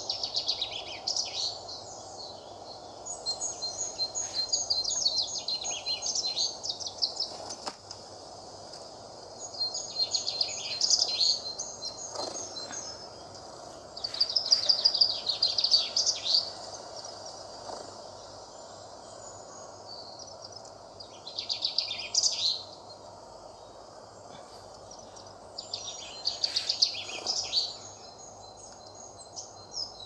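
Birdsong from a bird video playing on a tablet: a small bird sings about six short, rapid phrases a few seconds apart over a steady background hiss.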